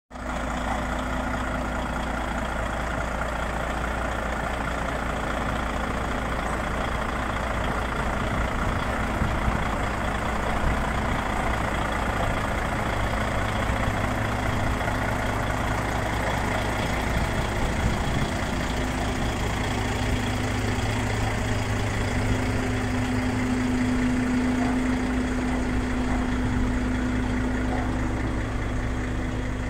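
Volvo FH16 660 truck's 16-litre straight-six diesel idling steadily, its low hum growing a little stronger in the second half.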